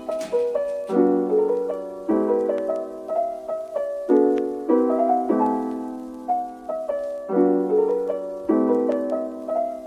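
Soft background piano music: chords struck about once a second, each ringing and fading, over a gentle melody.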